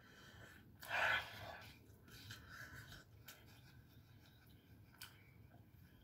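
A woman's short, breathy puff of air through her hand-covered mouth about a second in, then faint mouth and chewing sounds with a couple of small clicks, as she eats a hot, spicy patty.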